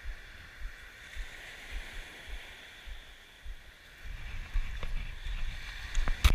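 Small waves washing onto a pebble beach, a steady hiss, with wind buffeting the microphone in low rumbles that grow heavier from about four seconds in. A single sharp click right at the end.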